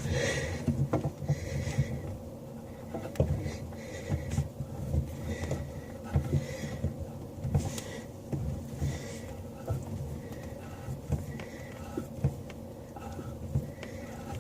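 A basin wrench working a tap nut under a bathroom sink: metal clicking and scraping with short knocks about once a second as the wrench is turned and repositioned.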